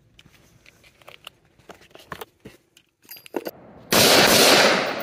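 Faint scattered clicks and taps, then about four seconds in a sudden loud blast of gunfire lasting about a second that fades out with a long echoing tail.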